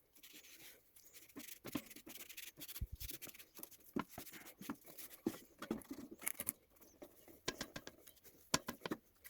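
Close-up handling sounds of cleaning a 3D printer: irregular scratching, rubbing and small clicks.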